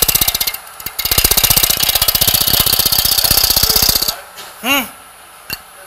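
A square-point scraper cutting a spinning, out-of-round wooden sphere on a lathe, making a fast, even rattle of knocks as the uneven wood strikes the tool each turn while the end pieces are cut away. The rattle breaks off briefly just after the start, resumes, and stops about four seconds in.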